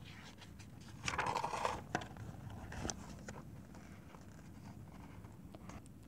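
A page of a large picture book being turned: a brief paper swish about a second in, followed by a few light crackles and taps as the page settles.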